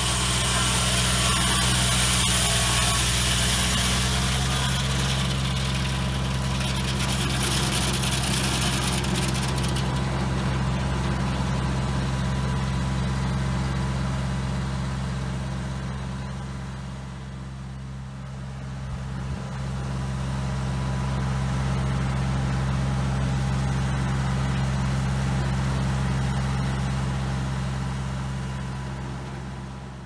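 Antique tractor engine running steadily, driving a Foley Belsaw M14 circular sawmill. For about the first ten seconds the blade is cutting through red oak with a loud high hiss over the engine. After that the blade spins free and only the engine's steady running remains.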